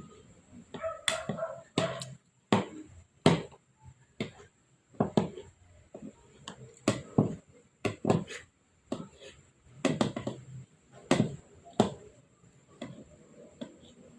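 Irregular sharp taps and knocks, roughly one a second, as things are struck against a hard surface during a baby's meal.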